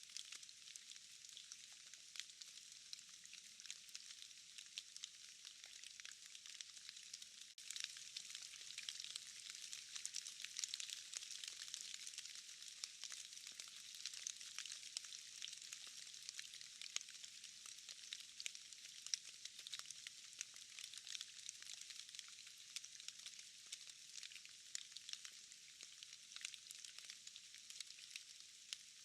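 Steady rain in a forest, drops pattering on leaves and moss as a fine hiss full of tiny ticks. It dips for a moment about seven seconds in, then carries on a little heavier.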